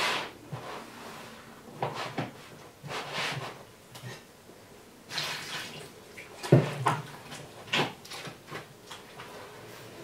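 Hands mixing and kneading wet bread dough of flour and water in a plastic basin: irregular squelching and slapping, the loudest slap about six and a half seconds in.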